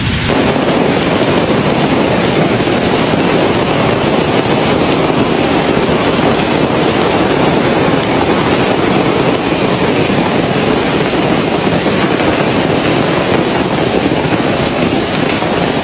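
Heavy hailstorm: hail pelting down hard, a loud, steady roar made of countless tiny impacts.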